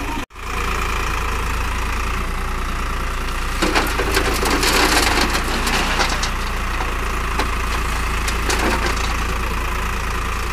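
Eicher 551 tractor's diesel engine running steadily while its front loader works, with dry brush and branches crackling and snapping as the bucket dumps its load into a trailer, loudest a few seconds in and again briefly later.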